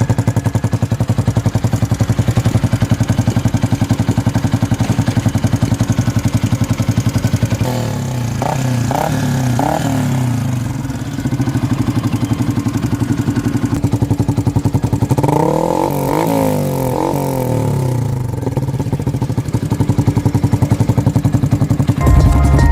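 Yamaha Sniper's single-cylinder four-stroke engine idling through an aftermarket muffler with its silencer insert fitted. It is blipped up in short revs about 8 seconds in and again about 15 seconds in, settling back to idle after each. Music comes in just before the end.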